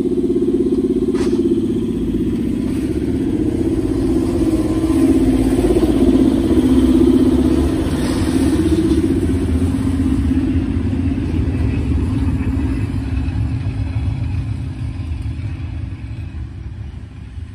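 Reko-ET electric railcar running with a steady low hum and rumble, fading away over the last few seconds.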